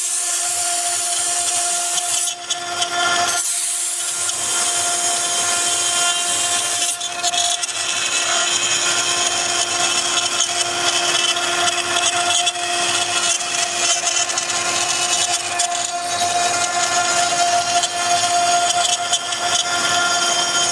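Woodworking CNC router's 3.5 kW air-cooled spindle running with a steady high whine while the bit cuts wood. The harsh cutting noise is strongest for the first couple of seconds and again from about three to seven seconds in, dropping briefly about two seconds in.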